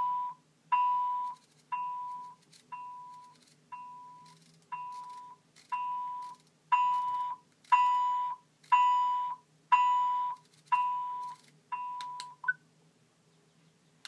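Parrot MINIKIT Neo hands-free speakerphone sounding a steady mid-pitched beep about once a second as its volume setting is adjusted: the beeps grow quieter, then louder, then quieter again. A short higher blip follows near the end.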